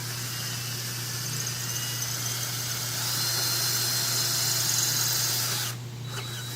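Power drill boring a hole through the top sign frame, its high whine getting louder about halfway through. It stops briefly near the end and starts again, over a steady low hum.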